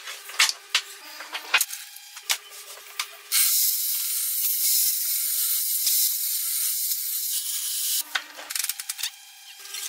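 Table saw cutting wood: a loud, steady hissing cut from about three seconds in until about eight seconds. Before and after it come quick clicks and short hums.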